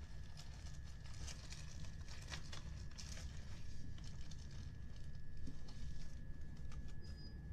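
Inside a Class 377 Electrostar electric train moving slowly out of a station: a low running rumble under a thin, steady high tone. Irregular clicks and knocks come from the wheels over the rails, clustered in the first few seconds.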